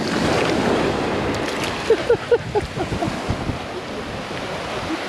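Shallow surf washing up over the beach, a steady rush of water. About two seconds in there is a quick run of short, falling squeaky calls.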